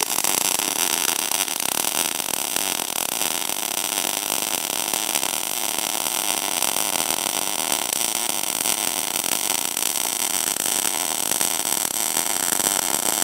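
MIG welding arc running a bead on steel plate at 35% inductance, the machine's standard setting, at about 19 volts and 120–130 amps. A loud, steady, dense crackling sizzle that starts abruptly as the arc strikes.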